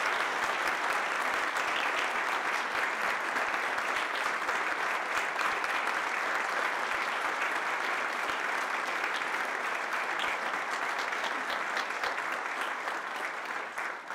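Sustained audience applause, a dense steady clatter of many hands clapping that tapers off near the end.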